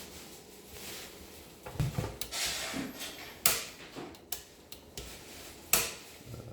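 Handling noise from a voltage converter being examined: a few scattered sharp clicks and knocks, with a short rustle about two and a half seconds in.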